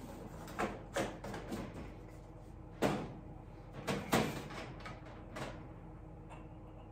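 Glassware being handled on a metal lab bench: a small glass beaker and a glass media bottle are picked up and set down, giving a handful of short knocks and clinks, the loudest about three and four seconds in, over a faint steady hum.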